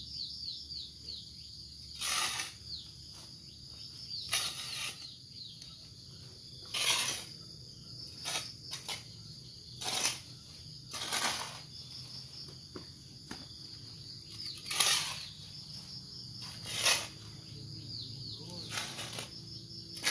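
A small hand hoe chopping and scraping into leaf-littered soil, about ten irregular strikes a second or two apart, while digging for earthworms. Insects chirp steadily in the background.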